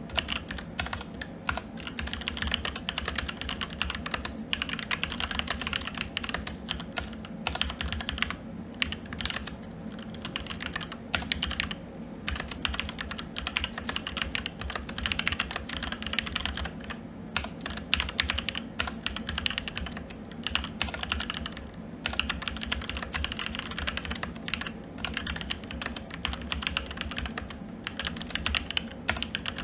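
Fast, continuous typing on a SteelSeries Apex 7 TKL mechanical keyboard with red linear switches, a dense stream of keystrokes broken by a few brief pauses.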